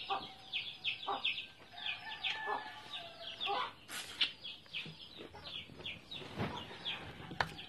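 Chickens clucking, with rapid high cheeps repeating several times a second. A sharp click comes about four seconds in and another near the end.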